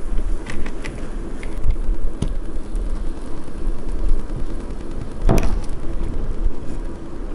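Red-hot kitchen knife sizzling and crackling as it melts down through a soft-plastic frog lure, with scattered small pops and one louder, sharp pop about five seconds in, over a steady low rumble.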